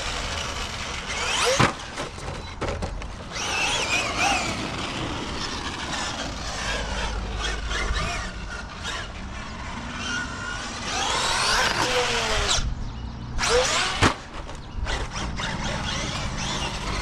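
Traxxas Maxx Slash RC short course truck running on 6S, its brushless motor and drivetrain whining up and down in pitch as it accelerates and lets off over the dirt jumps. Two sharp landing knocks, about a second and a half in and again about fourteen seconds in.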